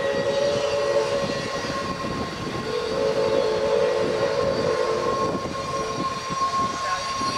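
Canadian Pacific 4-6-2 steam locomotive No. 2317 moving slowly around a curve, with sustained steady high tones sounding over its running; the lower tone drops out for a couple of seconds about a second in and then returns.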